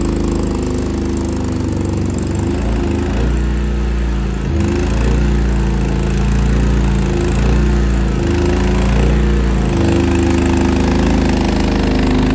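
Mini skid steer engine running steadily under working load, its pitch shifting a couple of times as it is worked while the grapple bucket clears out the stall's bedding.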